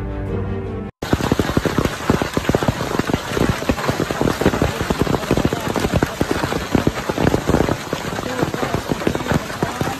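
Theme music for about the first second, cut off abruptly. Then hail pelting down, a loud, dense patter of many small hard impacts.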